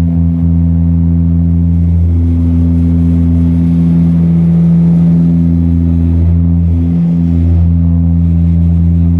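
Saab 340's twin turboprop engines and propellers running: a loud, steady drone of low, even tones.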